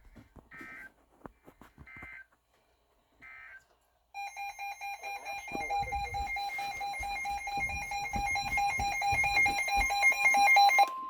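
Emergency Alert System signalling: three short bursts of digital data tones end the warning message. After a brief gap, a steady electronic alert tone sounds and grows louder toward the end, just before the next broadcast warning.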